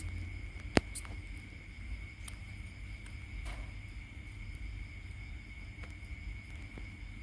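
A baby monkey sucking at a milk bottle's nipple: faint irregular clicks over a steady high-pitched whine and low rumble, with one sharp click a little under a second in.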